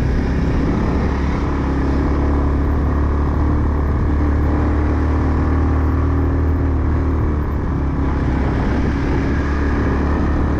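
Motor scooter engine running steadily at a cruise, with wind and road noise, heard from the rider's seat.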